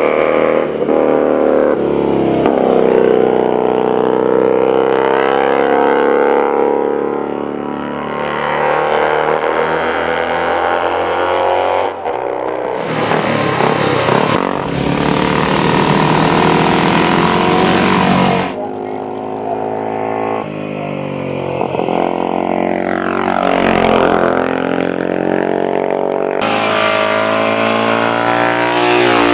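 Racing motorcycle engines revving hard and passing at speed, their pitch rising and falling through gear changes and as each machine goes by. The sound changes abruptly three times, about twelve, eighteen and twenty-six seconds in.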